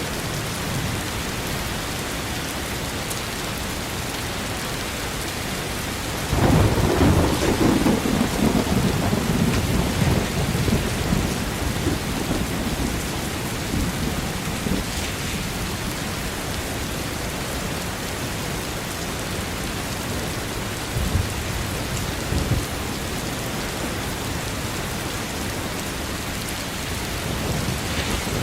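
Steady heavy rain, with a roll of thunder breaking in about a third of the way through and rumbling down over several seconds; more thunder starts right at the end.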